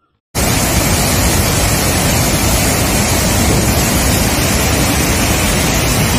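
Loud, steady rush of water pouring through the open spillway gates of a dam. It starts suddenly just after the start.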